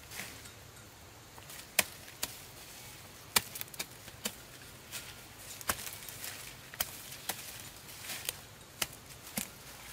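Dry corn stalks and leaves snapping and cracking in sharp, irregular strikes, about one or two a second.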